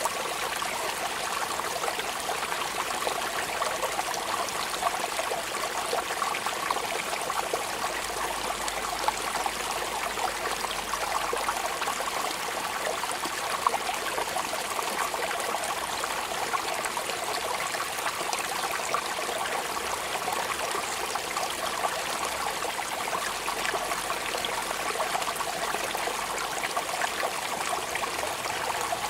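Steady rain falling, an even spatter of many small drops that never lets up.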